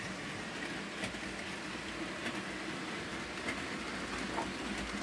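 HO-scale model train, a Roco model of an NS 6400-class diesel locomotive pulling container wagons, running along the track: a steady rolling whir with a few faint clicks of wheels over rail joints.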